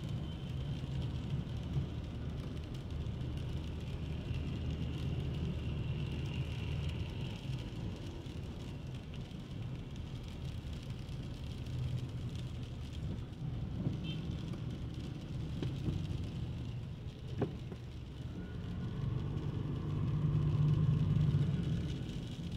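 Street traffic: motor vehicles running and passing, with a steady low rumble that swells as a louder vehicle goes by near the end, and a single sharp click partway through.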